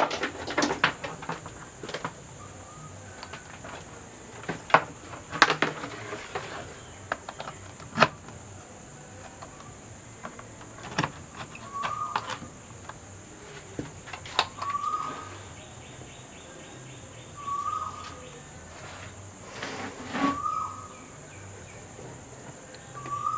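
Scattered light clicks and knocks, then a bird's short call repeated about every two to three seconds.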